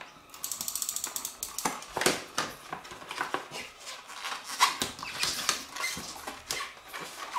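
A glue tape runner ticking in a quick, even run as it is drawn along the paper, then irregular crinkling and rustling of glossy printed paper as the chip bag is handled and folded.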